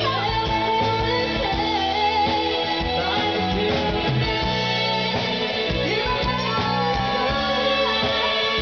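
Live pop band playing: a woman's singing voice, amplified through a microphone, over electric guitar, bass and drums, with long held notes in the second half.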